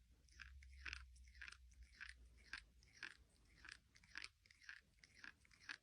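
Faint crunchy chewing, a crunch about twice a second.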